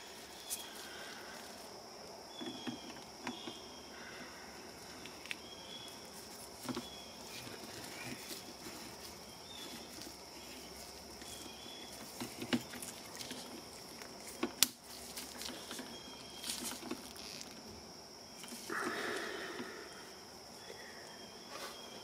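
Light clicks and taps of a metal refillable A/C oil injector being handled as its cap is screwed on and the charging hose fitted, with a brief rustle near the end. Behind them run faint, repeated high chirps and a steady high tone.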